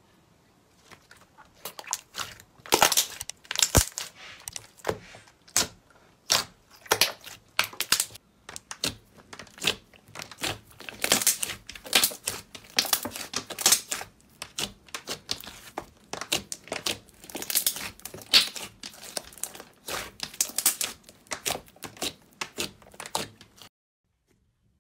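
Slime being stretched and squeezed by hand, trapped air pockets popping and crackling in fast, irregular clicks and snaps. It stops suddenly shortly before the end.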